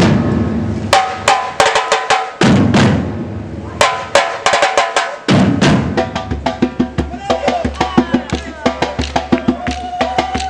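Batucada drum group playing: a few deep, ringing bass-drum hits mixed with sharp snare strikes, settling into a fast, steady samba beat about six seconds in.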